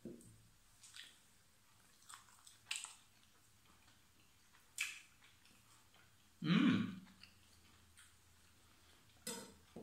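A few light clicks and taps of a knife and tongs on a plastic cutting board, then a short voiced 'mm' about two-thirds of the way in while a man tastes a freshly cut slice of roast pork loin.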